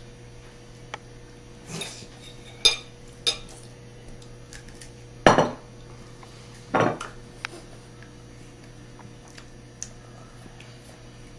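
Dishes and cutlery clinking and knocking at a dinner table: five or so separate sharp clinks with a few small ticks between, the loudest about five seconds in, over a steady low hum.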